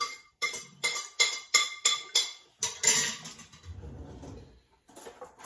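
Spoons clinking against plates during a meal: a quick run of about seven sharp clinks, roughly three a second, then a longer, louder scrape about three seconds in.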